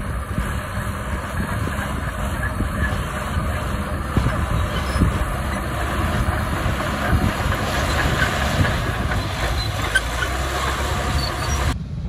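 Small Mitsubishi BD2G crawler bulldozer's diesel engine running under load, with its steel tracks clanking and rattling as it pushes earth and rock. The sound drops abruptly just before the end.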